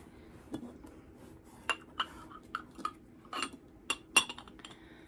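Ceramic and glass knick-knacks clinking and knocking against each other as they are rummaged through in a box: about eight irregular clinks, the two loudest close together near the end.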